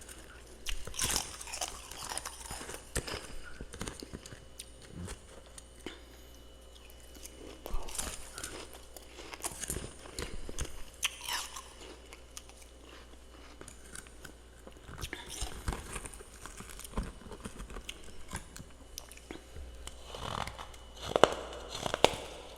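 Close-miked crunching and chewing of powdery freezer frost, in irregular bursts of small crackles with short pauses, louder near the end.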